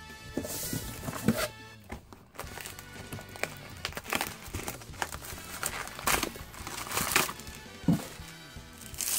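Background music with irregular crinkling and rustling of foil trading-card booster pack wrappers being handled.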